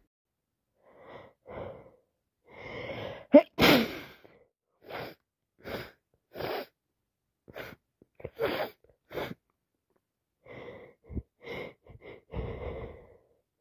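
A woman with a cold sneezing: gasping inhales build to one loud sneeze a few seconds in, followed by a run of short sniffs and more gasping breaths toward the end.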